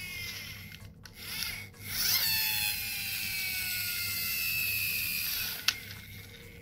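A toy ambulance's spinning wheels whirr, falling slowly in pitch as they wind down, after being set spinning again about two seconds in. A single sharp click comes near the end.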